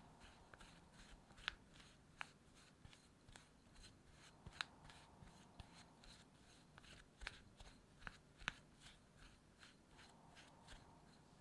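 Silicone spatula working crumbly soboro topping in a glass bowl: faint, quick scraping and rustling strokes, about three a second, with a few sharper clicks of the spatula against the glass.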